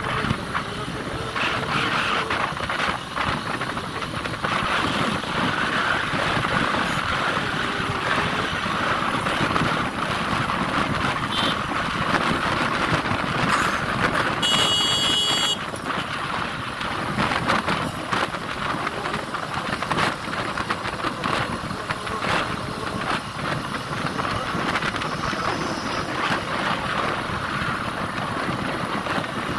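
Motorcycle riding at steady speed: the engine running under a constant rush of wind on the microphone. About halfway through comes a brief high-pitched beep lasting about a second.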